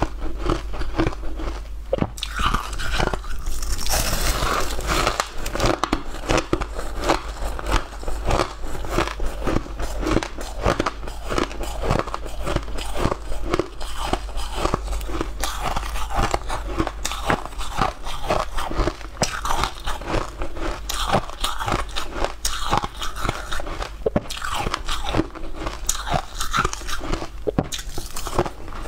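Close-miked crunching of chunks of blue-and-white ice, bitten and chewed, with many crisp cracks in quick succession.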